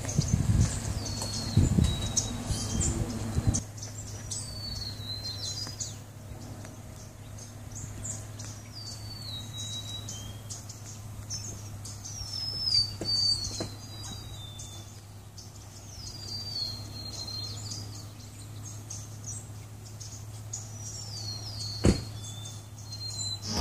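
A bird calling over and over, short high notes that slide downward, every few seconds. Low rumbling noise in the first few seconds, and a single sharp click near the end.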